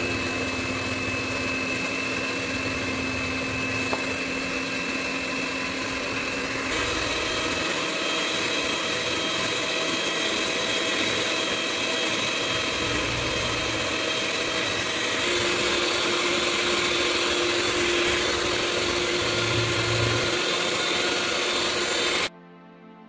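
Electric hand mixer (Moulinex) running steadily, its twin beaters whipping egg whites with sugar into a stiff meringue glaze; it switches off suddenly near the end.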